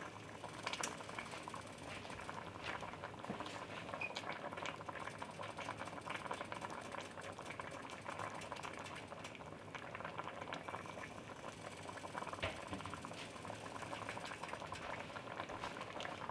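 Red wine and beef broth braising liquid simmering around short ribs in a cast-iron Dutch oven: a faint, steady bubbling with many small irregular pops.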